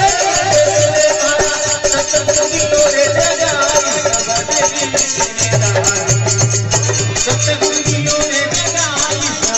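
Indian devotional folk music, instrumental: a wavering melody line over fast, jingling rattle-like percussion and a pulsing low drum pattern.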